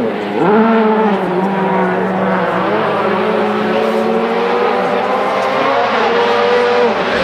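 A World Rally Car's turbocharged four-cylinder engine running hard at high revs. Its pitch dips briefly and climbs again several times as the driver lifts, changes gear and accelerates.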